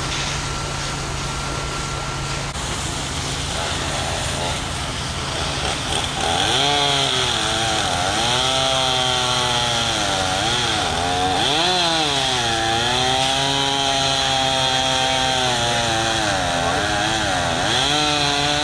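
Chainsaw running and revving up and down repeatedly as it cuts through pine limbs and brush, starting about six seconds in. Before it there is a steady low hum.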